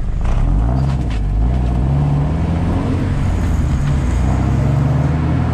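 Toyota MR2 AW11's 4A-GE four-cylinder engine and exhaust running loudly as the car accelerates, the engine note climbing in pitch.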